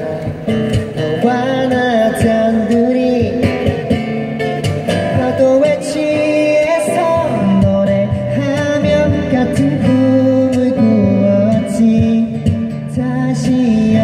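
A man singing live into a microphone, accompanied by strummed acoustic guitars.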